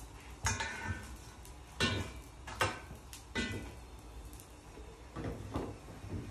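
Large knife blade knocking and scraping in a bowl of burnt ash: about half a dozen sharp knocks, the first few with a brief metallic ring.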